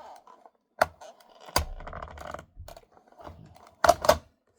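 Sharp plastic clicks and knocks from the parts of a Dyson vacuum cleaner being handled and latched: four in all, the last two close together near the end.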